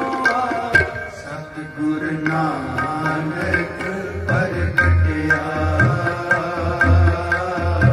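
Harmoniums holding a steady melody with a tabla pair keeping a regular beat, sharp strokes about twice a second, and deep bass-drum strokes joining from about halfway through: an instrumental passage of Sikh kirtan.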